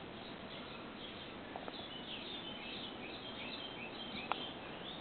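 Faint high bird chirps in the middle stretch, over steady background noise, with a single brief click about four seconds in.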